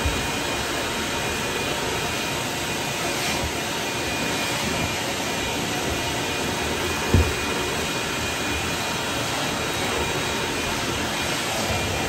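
Ridgid 10-gallon stainless-steel wet/dry shop vacuum with a 6 peak horsepower motor, running steadily as its wand is worked over carpeted stair treads. One thump about seven seconds in.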